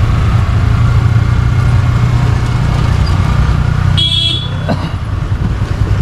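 Steady low rumble of a motorcycle ride in traffic, engine and road noise, with a short vehicle horn beep about four seconds in.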